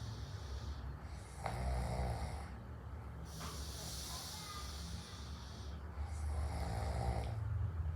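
A sleeping man snoring: two rattling snores about five seconds apart, with a hissing breath between them.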